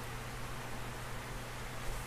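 Electric fan running steadily on high: an even hiss with a low, steady hum underneath.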